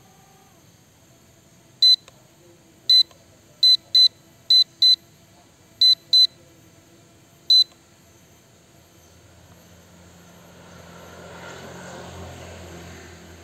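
Short, high electronic beeps from a small beeper, nine of them at uneven spacing over about six seconds. Near the end a low hum with a rushing noise swells up and then eases off.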